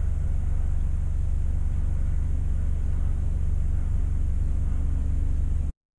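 Steady low rumble of a widebeam canal boat's engine as the boat cruises under power, cutting off suddenly near the end.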